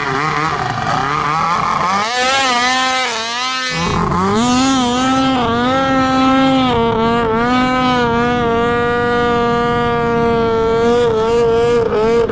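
Snowmobile engine at high revs as the sled skims across open lake water: the revs climb about two seconds in, then hold high and steady with small wavers. The hiss of water spray joins in early on.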